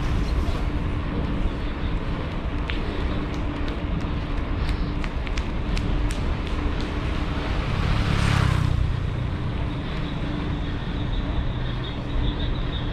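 Steady wind and road noise while riding along a road, with a scatter of light clicks in the middle and a louder vehicle sound swelling and fading about eight seconds in.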